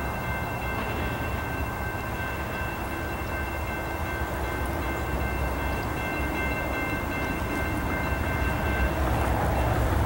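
Approaching freight train: its diesel locomotive's horn sounds one long held chord of several notes that ends about nine seconds in, over the low, steady rumble of the locomotive, which grows a little louder as it nears.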